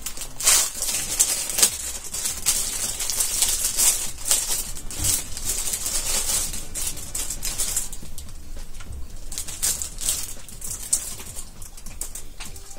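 Thin plastic bread bag crinkling and rustling as it is handled and opened, a dense run of sharp crackles that thins out in the second half.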